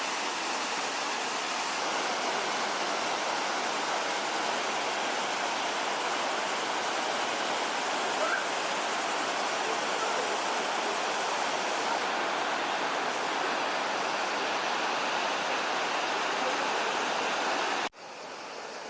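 Waterfall rushing: a steady, dense wash of falling water. It drops away suddenly near the end.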